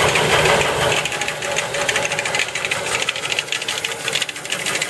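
Jet 14-inch vertical band saw running, its blade slapping against a plastic blade guide with a fast, even ticking.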